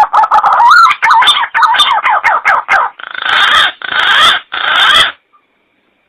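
Green pigeon (punai) calling: a quick run of short, wavering whistled notes, then three longer, harsh rasping notes, the call stopping about five seconds in.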